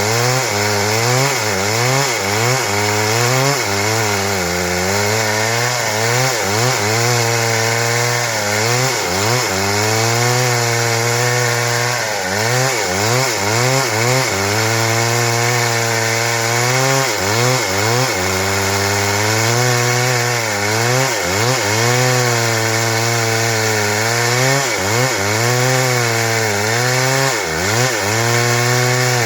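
Stihl MS 382 two-stroke chainsaw running at high revs while cutting wood into boards, its engine pitch repeatedly sagging under the load of the cut and picking back up.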